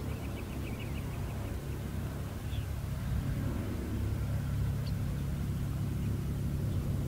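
Electric RC P-47 model's onboard sound system playing a steady, low idling engine sound. A few bird chirps near the start.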